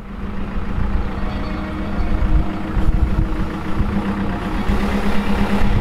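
A campervan's engine running close by, steady and even, getting louder over the first couple of seconds.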